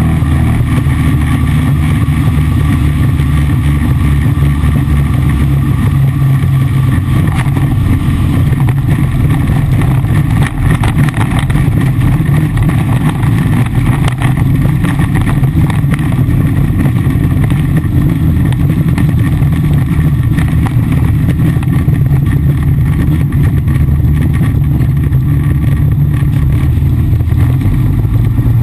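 Extra 300 aerobatic plane's six-cylinder piston engine and propeller running steadily in flight, a loud, even roar heard from inside the cockpit, mixed with rushing air.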